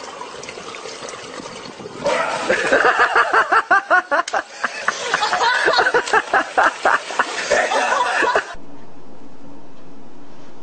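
A person laughing hard in rapid, repeated bursts. The laughter breaks off abruptly about eight and a half seconds in, giving way to a steady low hum.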